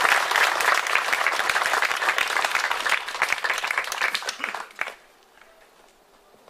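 Audience applauding, a dense patter of many hands clapping that thins out and dies away about five seconds in.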